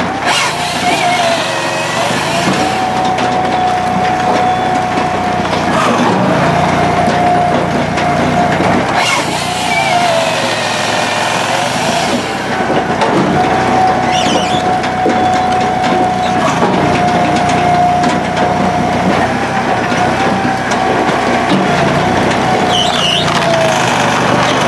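Hydraulic firewood processor running: engine and hydraulics hum steadily, the pitch sagging briefly every few seconds as the saw and splitter take load. A harsher rush of noise comes about ten seconds in as the hydraulically driven saw bar cuts through a log.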